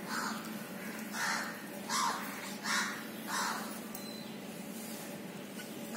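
A crow cawing five times in quick succession over the first three and a half seconds, over a faint steady low hum.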